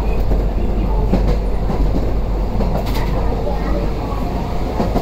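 Toden 7700 series tram running along its track, heard inside the car: a steady low rumble of the running gear and wheels, with a few sharp clicks from the wheels on the rails.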